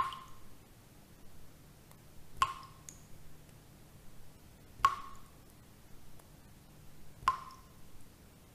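Four sharp plinking taps, evenly spaced about two and a half seconds apart, each with a short ringing tail, over a faint steady low hum.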